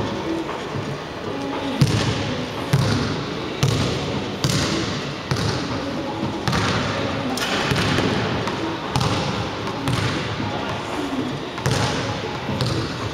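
Repeated sharp thumps on a hardwood gym floor, roughly one a second and unevenly spaced, over a steady background hum.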